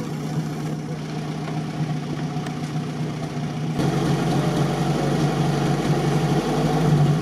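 Off-road vehicle engine idling steadily; about four seconds in it grows louder and deeper.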